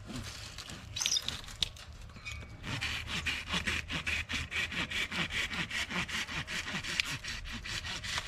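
Hand pruning saw cutting through a tree branch, starting about three seconds in with even back-and-forth strokes, about three a second. Before that, light rustling and clicks as the branch is handled.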